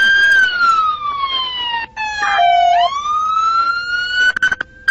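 Police car siren wailing loudly. Its pitch falls slowly for about two and a half seconds, holds low for a moment, then climbs back up, and it breaks off briefly near the end.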